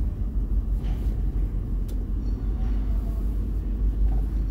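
Camper van creeping through a ferry's enclosed car deck: a steady low rumble from the engine and the hold, with a couple of faint taps.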